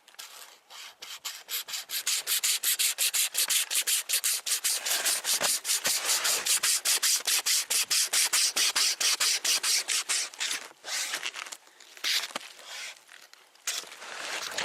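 Hand-pulled wire string saw cutting through wood: rapid back-and-forth rasping strokes, several a second. They pick up about two seconds in, run steadily, then slow to a few scattered strokes near the end.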